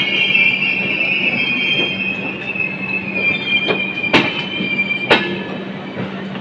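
Wheels of an express train's coaches squealing with a high, steady screech as it pulls slowly out of a station. The screech fades over the first few seconds, then come two sharp clacks about a second apart as the wheels cross rail joints or points.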